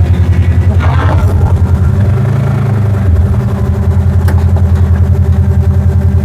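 Air 2 quadcopter drone's motors and propellers humming, heard close up through a lapel mic strapped to the drone's top, with a rapid even pulsing in level. The hum shifts pitch for a moment a couple of seconds in as the drone changes speed in flight.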